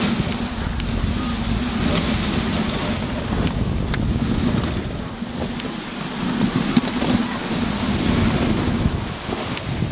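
Dog sled moving over snow behind a husky team: a steady rumbling hiss of the runners on the snow track, with wind buffeting the microphone.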